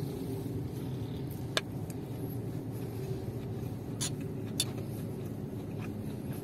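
Metal spoon and fork clinking and scraping against a ceramic plate, with a sharp clink about one and a half seconds in and two more around four seconds in, over a steady low vehicle hum.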